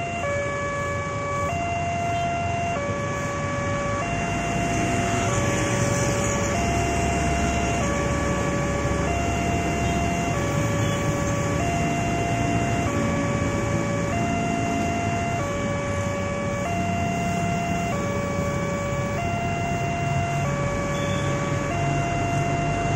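Indonesian railway level-crossing warning alarm sounding from the signal's loudspeaker. It is an electronic two-tone call, high and low tones alternating about every second and a quarter, and it means the barrier is down and a train is approaching.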